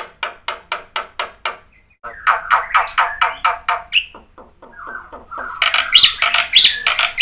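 Black-winged starling (jalak putih) singing a varied, mimicry-filled song. It opens with a fast run of evenly spaced sharp clicking notes, moves into quick chattering notes, and ends in loud harsh screeches with rising whistles near the end.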